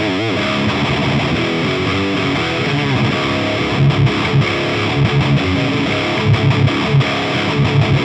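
Heavily distorted electric guitar, tuned down to C sharp, playing metal riffs with rhythmic low palm-muted chugs through an Orange Rockerverb 100 MKIII tube head's dirty channel with the gain at about 2 o'clock, heard from the miked cabinet. A wavering, bent note sounds right at the start.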